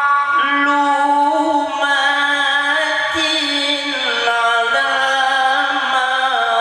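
Male qari reciting the Quran in the melodic, ornamented mujawwad style: one voice holding long, wavering notes that glide slowly between pitches, stepping down in pitch about four seconds in.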